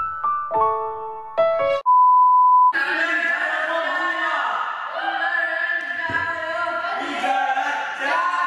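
Edited sound track: a few electric piano notes, then a single steady beep for under a second, then several seconds of loud, dense music.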